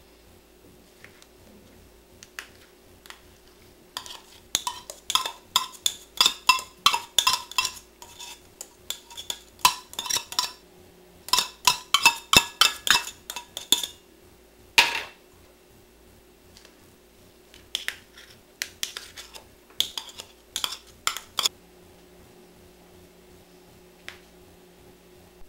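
Metal spoon scraping and clinking against the inside of a tin can while chopped black olives are dug out of it, in two long runs of quick scrapes and clicks with a single knock between them.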